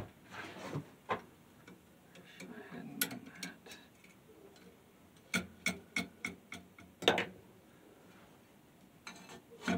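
Sharp metal clicks and taps from tools and the casting machine's fittings being handled, with a run of about five evenly spaced clicks midway, roughly three a second, and a louder click shortly after.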